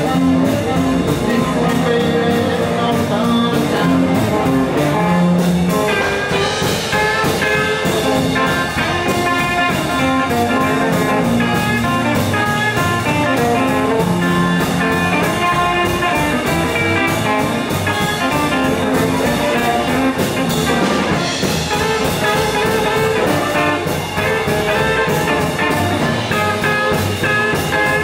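Live blues band playing an instrumental passage with no vocals: Telecaster-style electric guitar, upright double bass and drum kit, with a harmonica carrying sustained lead notes.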